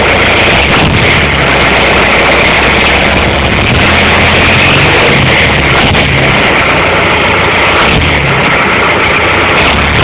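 John Deere 6000-series tractor diesel engine running steadily, heard from under its vertical exhaust stack.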